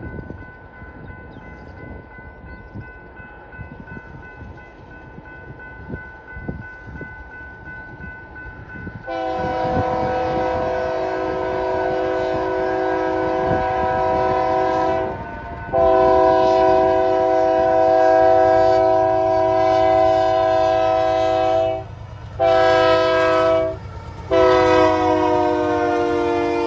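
Union Pacific freight locomotive's multi-chime air horn. After about nine seconds of faint rumble, it sounds two long blasts, a short one, then a long one: the grade-crossing signal. Its pitch drops near the end as the locomotive passes, over the low rumble of the engine.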